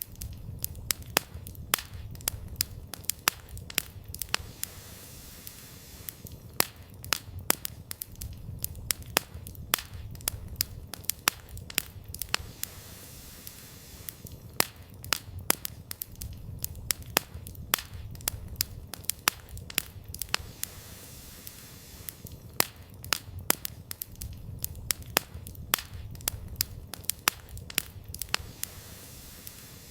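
Wood campfire crackling: irregular sharp pops and snaps, sometimes several a second, over a low steady rumble of burning.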